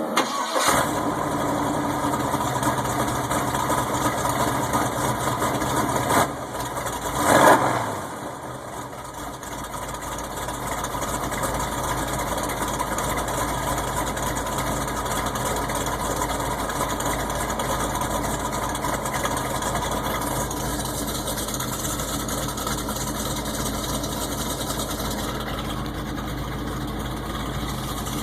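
1980 GMC Sierra C15's L31 Vortec 350 V8 with a Summit K1107 cam, exhausting through Thrush Turbo mufflers, firing up on a cold start. It gets a short blip about six seconds in and a quick rev a second later, then settles into a steady rough idle with a deep rumble.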